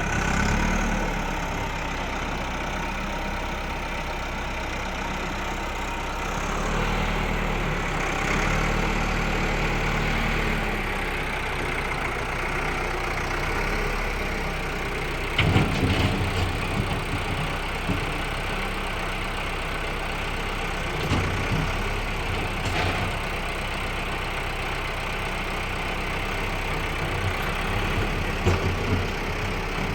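Tractor engine running steadily at low revs, with a few knocks and clatters about fifteen seconds in and again near the end.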